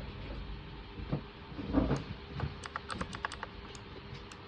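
Keys being typed on a K61 60% mechanical keyboard with blue switches: sharp clicky keystrokes, scattered at first, then a quick run of them in the second half. A low thump comes a little under two seconds in.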